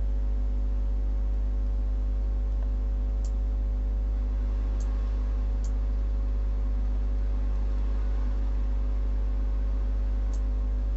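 Steady low electrical hum with several steady tones above it, unchanging throughout. A few faint mouse clicks are scattered through it.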